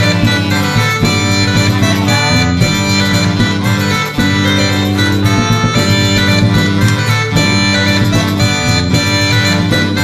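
Upbeat background music with plucked guitar and a steady beat, in a country or bluegrass style.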